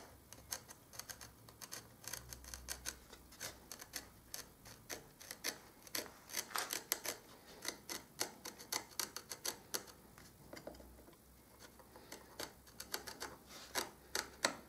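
Marking knife scoring along a pencilled line in a wooden panel: a run of faint, irregular ticks and small scratchy clicks as the blade is drawn through the wood fibres, with a short lull about eleven seconds in.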